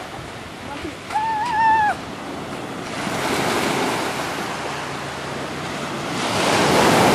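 Ocean surf washing onto a pebble beach, swelling loudest near the end. About a second in, one short wavering call cuts through.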